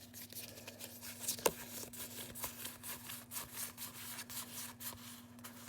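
Pokémon trading cards sliding and rubbing against each other as they are flipped through by hand, a run of quick light rustles with one sharper tick about one and a half seconds in. A faint steady hum sits underneath.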